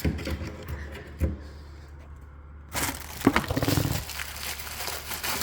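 Handling noise of a junction box and its cable being pushed up through a downlight hole into the ceiling void: a click about a second in, then a burst of rustling and scraping with a few sharp clicks, trailing off into fainter rustling.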